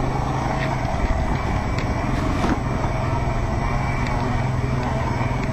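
E-cross EC500s electric pit bike ridden along a rough dirt trail, giving a steady running noise with a few sharp knocks from the bumps.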